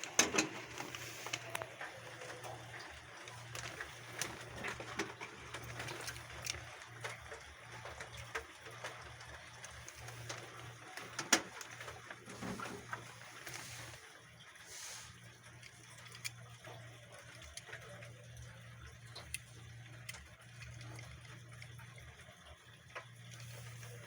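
Rain on ceramic roof tiles: an even patter with irregular sharp drips and clicks, the strongest about 11 seconds in, over a steady low hum.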